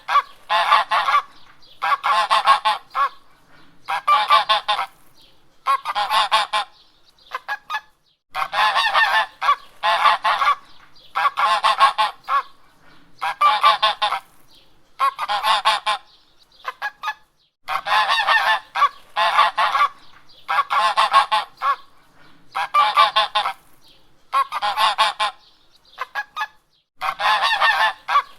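Domestic geese honking in a steady run of loud, harsh calls, one every second or two, each call a rapid string of honks, with a few short breaks of silence.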